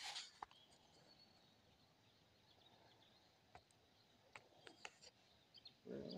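Near silence: faint outdoor ambience with a few soft, scattered clicks.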